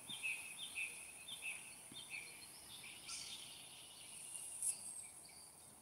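Faint birdsong: a bird gives a run of short, slightly falling chirps in the first half, with a few fainter calls later, over a steady high-pitched hiss.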